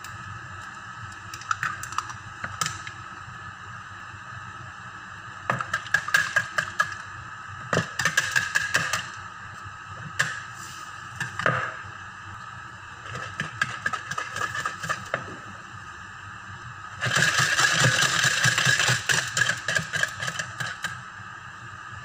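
Wire whisk clicking and scraping against a mixing bowl as eggs and sugar are beaten. It comes in short scattered bouts, then in a fast continuous bout toward the end.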